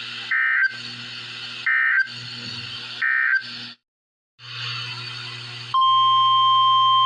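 A weather radio receiver plays three short screechy bursts of SAME digital end-of-message data over radio hiss, about a second and a half apart. After a brief dropout, the steady NOAA Weather Radio 1050 Hz warning alarm tone starts about six seconds in, announcing the next warning.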